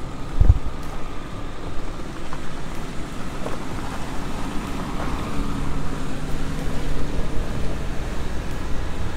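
Toyota Land Cruiser's 4.2-litre turbo-diesel straight-six running as the truck climbs a dirt track and drives past, with a low thump about half a second in.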